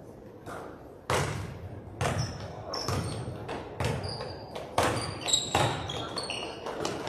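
A basketball being dribbled on a gym floor, about one echoing bounce a second, with short high squeaks of sneakers on the court.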